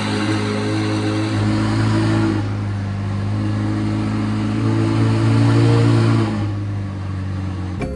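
McLaren 720S twin-turbo V8 running through a titanium exhaust, settling at idle and swelling a little louder twice.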